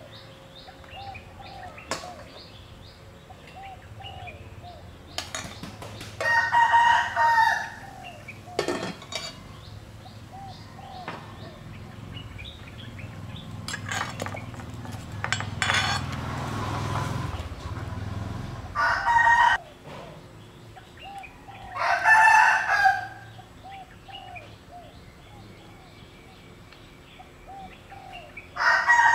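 Roosters crowing four times, each crow lasting a second or two; these are the loudest sounds. Faint repeated bird chirps and an occasional clink of utensils come in between.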